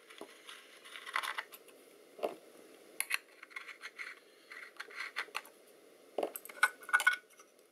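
Small metal parts and tools being handled during a teardown: scattered light clicks, taps and scrapes, with a quick run of sharper clicks a little after six seconds in.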